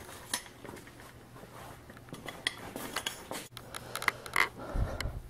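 Scattered light metallic clinks and knocks of a steel motorcycle exhaust pipe being handled and fitted against the engine, with a dull thump near the end.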